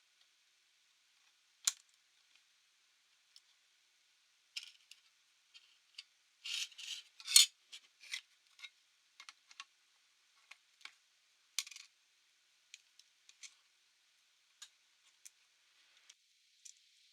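Scattered light clicks and taps of small parts being handled on a laptop, with a denser run of clicks about six to eight seconds in.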